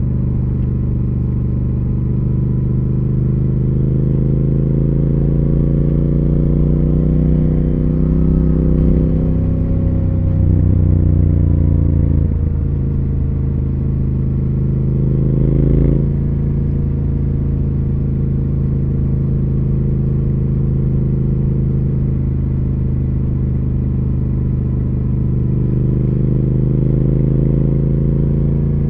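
2020 Triumph Speed Twin 1200's 1200 cc parallel-twin engine and exhaust running under way, the note rising and easing with the throttle. It dips about ten seconds in, climbs again, then drops abruptly about sixteen seconds in before running steady and rising gently near the end.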